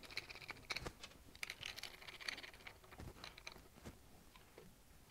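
Faint, scattered small clicks and taps of hands working metal fittings on a motorcycle's handlebar throttle-cable assembly as a fitting is nipped up and the cable handled.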